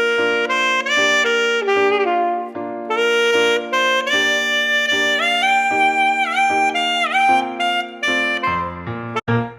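Saxophone playing a legato melody over a backing track with a steady beat, bending a couple of notes down about two-thirds of the way through.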